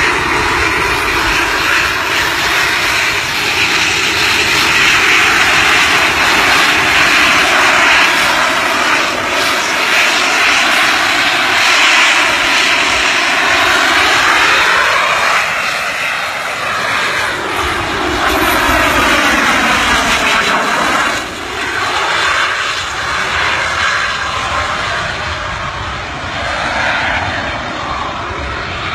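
Jet-powered hoverboard's turbine engines running at full thrust in flight, a loud continuous jet roar. Its tone sweeps up and down as the board passes by in the middle, and it eases a little toward the end as the board flies off into the distance.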